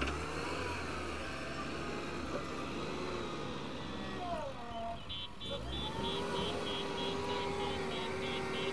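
JCB backhoe loader's diesel engine running, its pitch rising and falling as it works the throttle while pushing soil with the front bucket. From about five and a half seconds in, its reversing alarm beeps steadily about three times a second.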